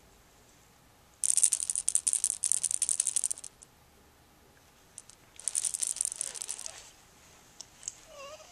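A homemade toy rattle shaken in two bursts of fast, dense rattling, each one to two seconds long: one starting about a second in and another just past the middle.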